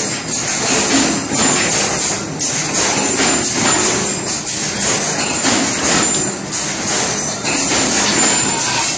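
Background music with a steady beat and bright jingling percussion.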